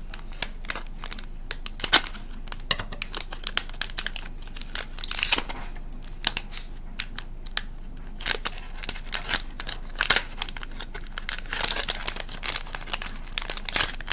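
A foil blind bag crinkling in the hands and being torn open: a continuous run of sharp crackles, with longer tearing rips about a third of the way in and again near the end.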